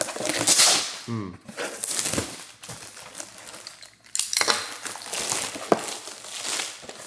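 Packaging being opened and handled: crinkling and rustling in irregular bursts, with light clinks and knocks and one sharp click near the end.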